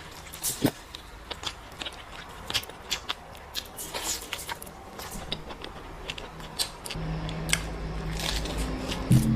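Close-up eating sounds of a person biting and chewing meat: irregular sharp smacks and crunchy clicks, a few to each second. A low steady hum joins near the end.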